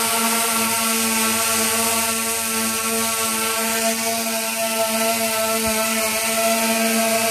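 DJI Phantom v1 quadcopter hovering, its four electric motors and propellers giving a steady buzzing hum at a constant pitch.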